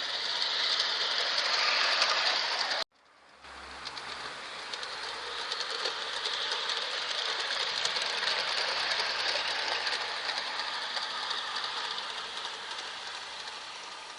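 LGB garden-scale model train running along outdoor track, a steady rattle of wheels on rails. It cuts off abruptly about three seconds in, then comes back, grows louder toward the middle and fades as the train passes.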